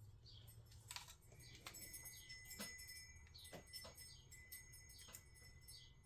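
Near silence: faint scattered clicks and taps of a multimeter and its probes being handled.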